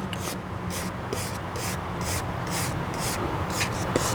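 Wire brush scrubbing the scorched, charred surface of a wooden bowl to clear soot from the opened grain, in short strokes about twice a second over a steady low hum.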